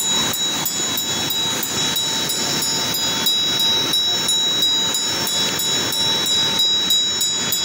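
Tibetan Buddhist hand bell (drilbu) rung rapidly and steadily, about four to five strokes a second with a sustained high ring, over the steady rush of a fast mountain river.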